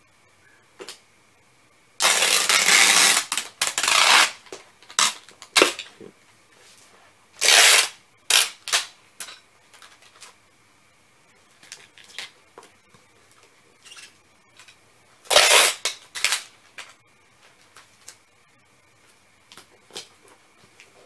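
Packing tape pulled off a handheld tape gun to seal a cardboard box: a long rip of tape about two seconds in, more long pulls around seven and fifteen seconds, with short rips and taps in between.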